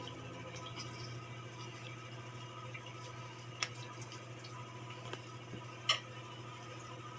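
Hands kneading and pressing soft, oiled parotta dough: faint wet squishing with small clicks, and two sharper clicks about two seconds apart in the second half, over a steady low hum.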